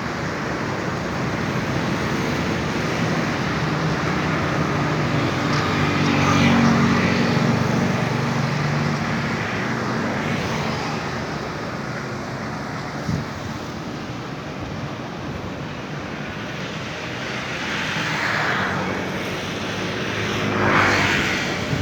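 Steady engine rumble with a low hum, swelling about six seconds in and again twice near the end as something passes.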